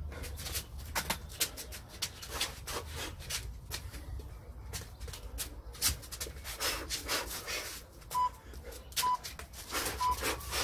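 Boxing shoes shuffling and scuffing on patio tiles during shadowboxing footwork. Near the end, three short beeps about a second apart from a round timer, counting down to the end of the round.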